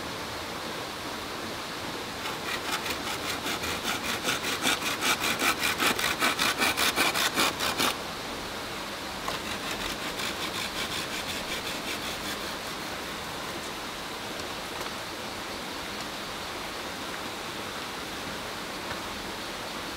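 Hand saw cutting through a green bamboo tube in quick, even strokes, about three a second. The strokes are loud for several seconds and stop abruptly, then a second, fainter run of strokes follows. A creek rushes steadily underneath.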